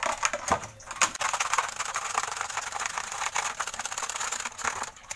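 A metal spoon rapidly stirring and beating frothy cold coffee in a tall jar, clicking and clattering fast against the jar's sides. The clatter runs from about a second in and stops shortly before the end.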